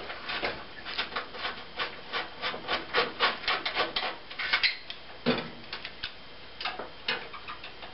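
A 1/4-inch nut driver turning the fastener that holds an electric range's burner receptacle: a quick run of short clicks and scrapes for about five seconds, then a few scattered knocks as the loosened receptacle and its wires are handled.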